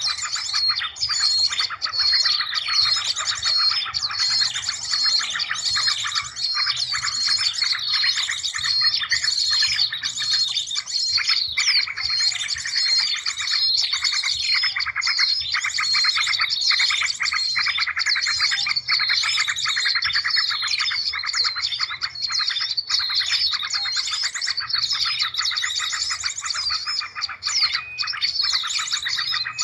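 Dense, unbroken chorus of many small birds chirping and twittering over one another in quick, repeated notes: a bird-lure (pikat) recording made to draw in small birds.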